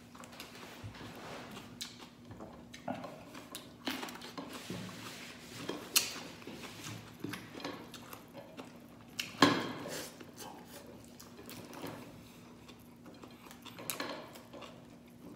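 Eating crab by hand over a plate of rice: crab shell crunching and scattered clicks and taps against the plate, with two sharper, louder knocks about six and nine and a half seconds in.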